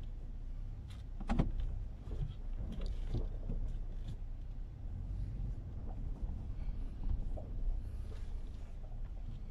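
Low steady rumble of a 2017 Toyota Tacoma's 3.5-litre V6, heard from inside the cab as the truck moves slowly. A few clicks and knocks sound over it, the loudest about a second and a half in.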